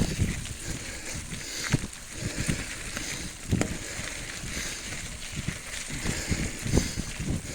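Bicycle ridden over rough ground: irregular knocks and rattles of the bike over bumps, the loudest about two seconds in, halfway through and near the end, over a steady rumble of wind on the microphone.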